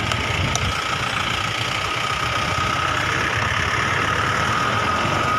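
Vehicle engine idling, a steady low rumble, with a steady high-pitched tone running over it.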